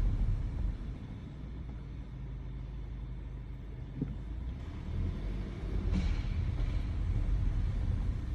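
Audi A3 running, a low rumble that dips about a second in and swells again past the middle, with two brief knocks. This is the strange noise the owner places in the engine or transmission.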